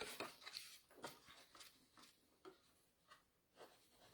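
Faint rubbing and light clicks of a bone folder pressed along the glued seams of a cardstock box, mostly in the first second and a half.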